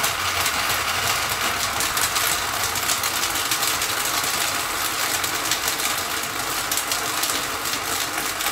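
Countertop blender motor running steadily at full speed, blending overripe bananas and ice cubes into a very thick shake.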